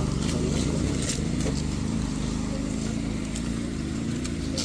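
A motor engine running steadily, a low even hum with a few faint clicks over it.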